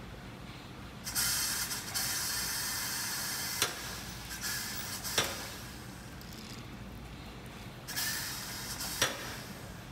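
Pneumatic press on a stainless steel tofu mould: compressed air hisses as the press plate comes down onto the weight bar, a long hiss from about a second in and a shorter one near the end, with three sharp metallic clicks.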